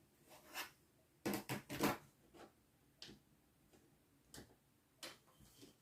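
Scattered short clicks and scraping strokes of crafting work on a thin acrylic sheet, with a quick run of several strokes about a second in and single ones after that.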